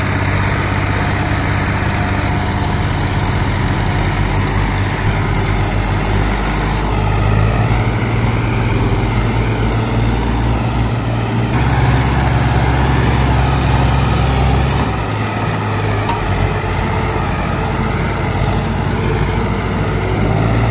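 Two diesel tractor engines, a Mahindra 575 and a Solis 4515, running hard under load as the coupled tractors pull against each other. The steady engine drone shifts pitch a few times as the load changes.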